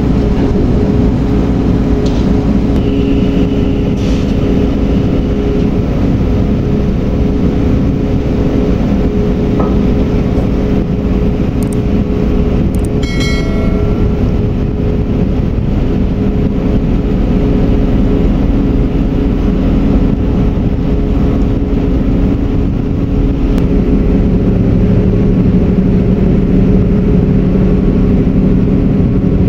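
Steady drone of large marine diesel engines, with a few steady low tones; the engine note shifts a little near the end. A short high tone sounds about halfway through.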